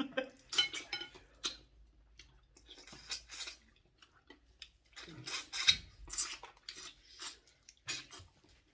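Cutlery clinking and scraping against bowls as pepper soup is eaten, in irregular clicks that come in two busy spells.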